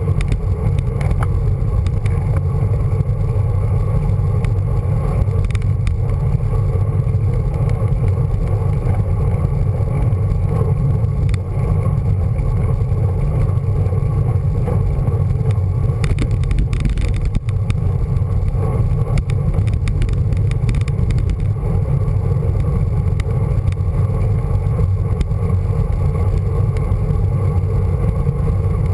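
Steady low rumble of wind buffeting the microphone of a handlebar-mounted camera on a road bike riding at speed, mixed with tyre and road noise. A few faint ticks and rattles come through about halfway.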